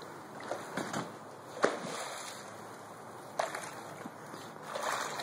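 Swimming-pool water sloshing and lapping in the wake of a jump, with three short sharp clicks.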